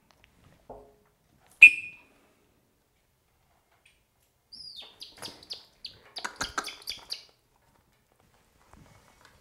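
A single short, loud blast on a falconer's whistle about a second and a half in, the recall signal to the hawk. A few seconds later, a run of quick flaps and rustles lasting about three seconds as the Harris's hawk flies to the gloved fist and lands.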